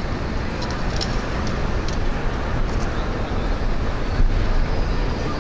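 City street ambience: a steady rumble of road traffic, with a few faint high clicks in the first couple of seconds.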